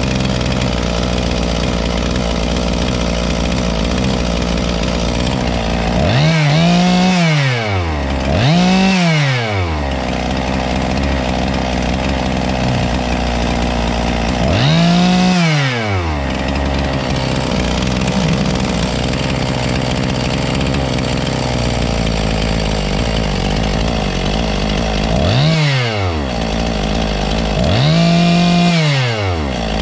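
Husqvarna 257 60cc two-stroke chainsaw running steadily. The throttle is blipped five times, each rev climbing and falling back: two close together, one on its own, then two more near the end. It is running again after years unused, with its carburettor's low- and high-speed screws being re-set.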